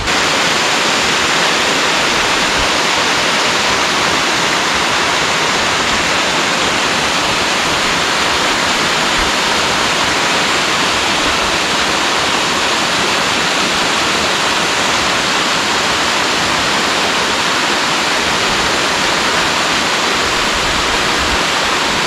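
Mountain waterfall falling over a rock ledge onto a bed of stones: a loud, steady rush of water.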